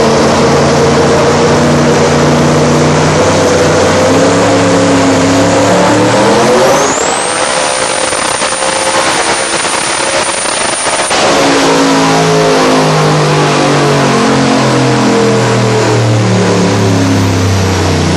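Twin-turbo Buick Grand National engine under a dyno pull. It runs at part revs, then about seven seconds in revs hard up to a high, steady pitch while a high whistle climbs with it and holds. It backs off abruptly a few seconds later and the revs wind down.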